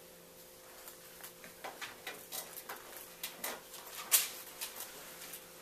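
Thin Bible pages being leafed through: a run of soft rustles and sharp paper flicks, the loudest about four seconds in, over a faint steady room hum.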